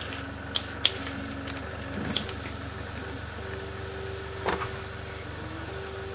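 Airbrush air compressor running with a steady hiss of air and a low hum whose faint tone comes and goes. A few light clicks and taps from handling at the bench.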